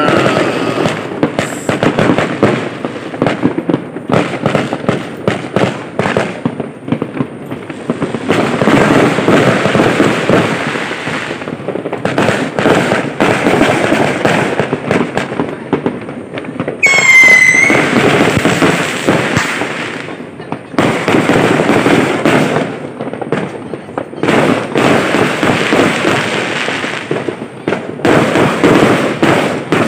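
Many fireworks and firecrackers going off at once: a dense crackle of rapid pops and bangs that swells and eases, with a whistle gliding down in pitch about 17 seconds in.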